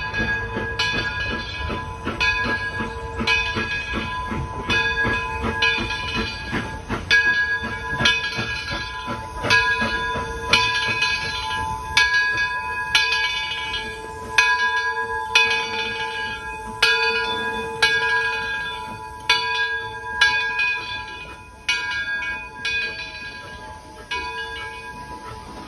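Steam locomotive bell ringing steadily, about one stroke every 1.2 seconds, each stroke ringing on with the same bright pitch. Under it, a train's low rumble fades out about halfway through.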